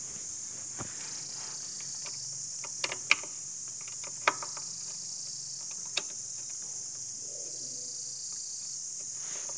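A handful of sharp metallic clicks and taps from a screwdriver working the screw of a scooter's rear brake cable clamp at the brake arm, the loudest about three and four seconds in. Under them a steady high-pitched hiss.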